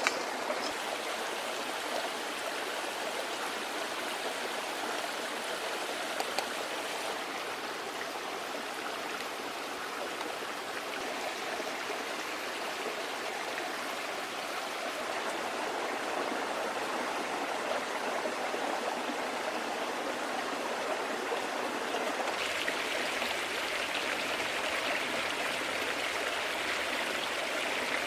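A small creek flowing and babbling steadily, with a few faint clicks; about three-quarters of the way through the rush turns brighter and hissier.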